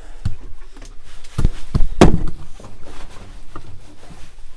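A few separate knocks and thuds of someone moving over the floor of a mine tunnel and handling debris, the loudest about two seconds in.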